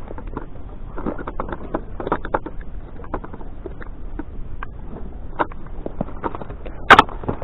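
Irregular light taps, scrapes and rustling as a freshly caught horse mackerel is gripped in a cloth glove and unhooked with pliers on concrete, with one sharp, loud knock shortly before the end.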